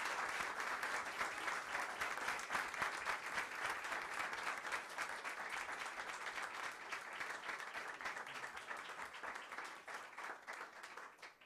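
An audience of several dozen people applauding, a dense steady clapping that thins out and dies away over the last couple of seconds.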